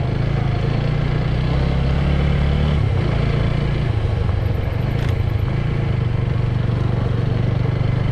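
Motorcycle engine running steadily under way, its note dropping slightly about three seconds in.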